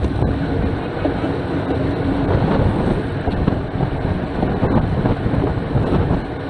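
Road bike ridden fast on tarmac: a steady rumble of tyre noise and wind rushing over the bike-mounted camera's microphone.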